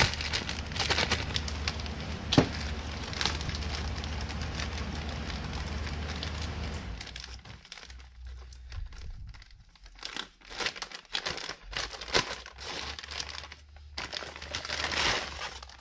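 Thin plastic bag crinkling and rustling as gloved hands work a new hydraulic valve section out of it. The crinkling is continuous at first, with one sharp click a couple of seconds in, then breaks into short separate bursts in the second half.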